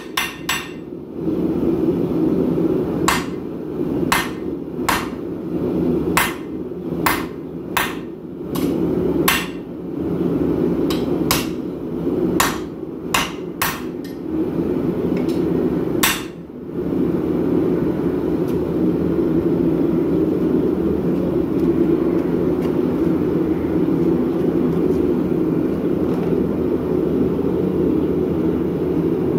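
Ball-peen hammer striking hot 5160 knife steel on an anvil: a few quick blows at the start, then about fifteen strikes roughly a second apart, the last about halfway through. Under and after the blows runs the steady roar of a propane forge burner.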